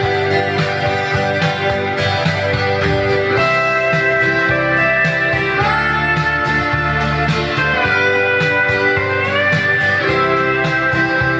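Instrumental break in a country ballad: a steel guitar plays the melody in long, sliding notes over strummed guitar and bass with a steady beat.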